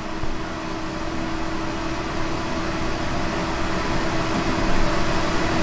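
Pet drying cabinet's fans running steadily: an even rush of blown air with a constant hum underneath.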